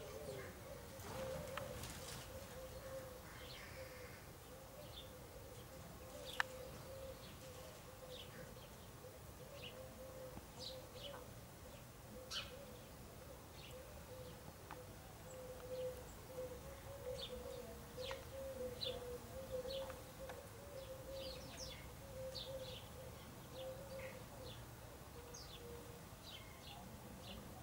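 House sparrows chirping: faint, short high calls scattered throughout, coming more often in the second half, over a steady low wavering hum.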